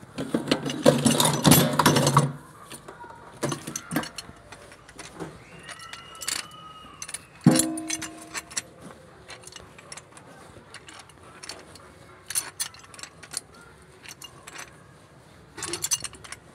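Metal clinks and taps from a pipe wrench gripping and turning a threaded fitting, beginning with a loud clattering handling of tools. About seven and a half seconds in there is one sharp metal clank with a short ring.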